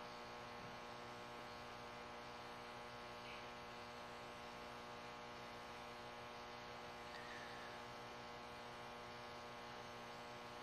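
Faint, steady electrical mains hum with a buzzing stack of overtones, unchanging throughout.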